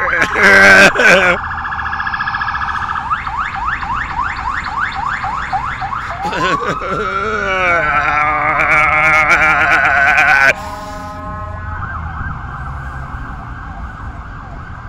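Emergency vehicle siren, loud and cycling through its patterns: fast warbling, then repeated rising sweeps, then a wavering tone. It cuts off abruptly about ten seconds in, leaving a quieter steady tone.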